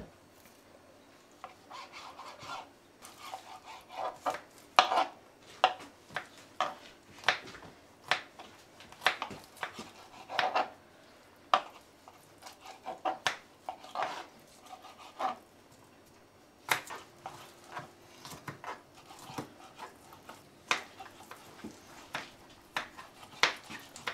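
Kitchen knife chopping garlic and raw chicken on a chopping board: irregular knocks of the blade on the board, some in quick runs, with short rubbing sounds between strokes.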